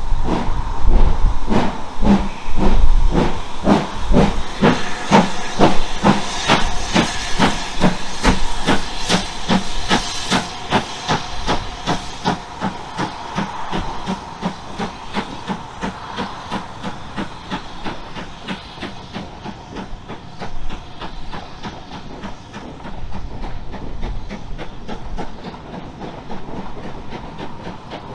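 Steam locomotive working under power, its exhaust beats quickening as it gathers speed and growing fainter as it draws away, with steam hissing.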